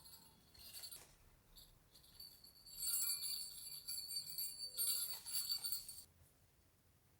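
Light, bright metallic jingling and clinking, from about three seconds in until about six seconds in, then it stops.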